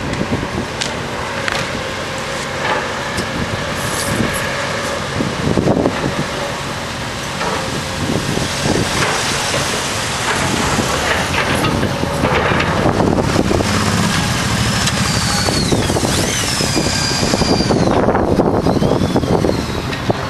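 Tracked hydraulic excavator working rubble: its diesel engine runs steadily under load, with scattered clanks and scrapes from the bucket on stone and debris. Several high, wavering squeals come in during the last few seconds.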